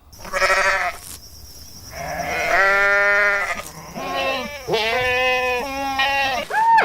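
Bleating: a short bleat, then a long drawn-out one, followed by three more bleats in quick succession and a brief final call.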